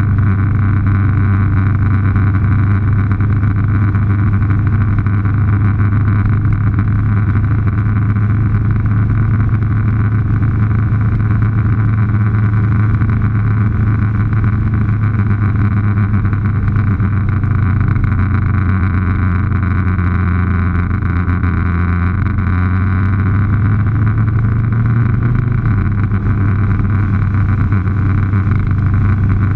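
Motorcycle engine running at a steady cruise: a constant low drone mixed with wind rush and tyre noise on the road.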